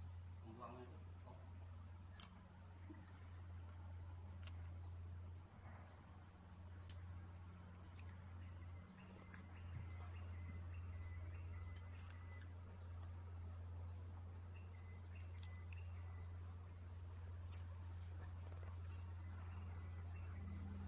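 A steady high insect trill over a low steady hum, with a few light clicks of hand tools on the metal valve body.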